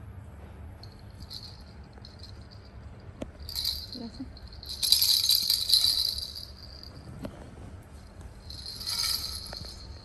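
Plastic baby rattle toy, a ring of hollow balls with bells inside, jingling as it is pushed and grabbed. The jingling comes in bursts: a short one about three and a half seconds in, the longest and loudest around five to six seconds, and another near nine seconds.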